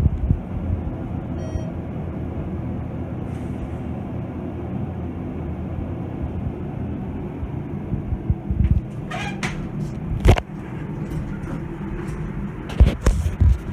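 ThyssenKrupp hydraulic elevator car travelling with a steady low rumble. About ten seconds in comes a sharp clunk, and near the end a few knocks as the car stops and its doors open.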